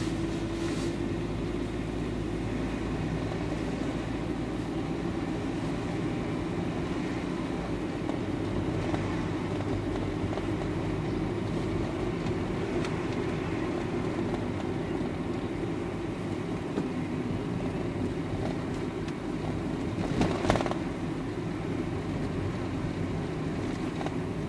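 Car engine and road noise heard from inside the cabin, a steady hum while driving at low speed. A short thump about twenty seconds in.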